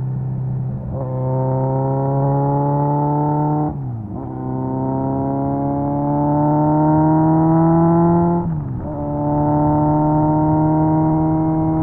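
Kawasaki Z900's 948cc inline-four running through an SC Project aftermarket exhaust under gentle acceleration. The revs climb slowly, with two brief dips about four and nine seconds in, as the bike changes up a gear.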